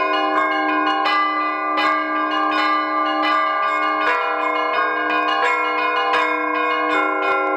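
Church bells ringing: several bells of different pitch struck in quick succession, several strikes a second, their tones overlapping over a steady low hum from a larger bell.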